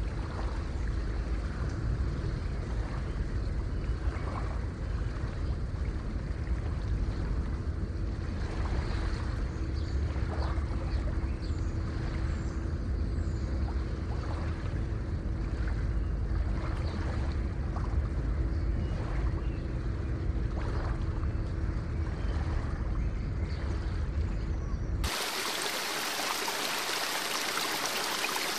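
Heavy rushing water, deep and churning with scattered splashes. About 25 seconds in it cuts abruptly to a brighter, hissing babble of a fast stream.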